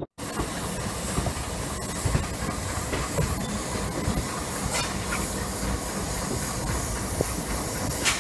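A passenger train heard from its own open doorway while running: a steady rush of wheel and air noise, with the wheels clicking irregularly over rail joints and one sharp loud click near the end.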